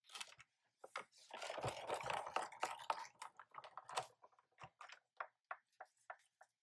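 Sizzix Big Shot Foldaway die-cutting machine being hand-cranked, pressing the cutting pad and Bigz die through its rollers to cut cardstock: a run of clicks with a dense, grinding stretch of noise for about a second and a half, then lighter clicks and taps as the acrylic plate is lifted off the cut sheet.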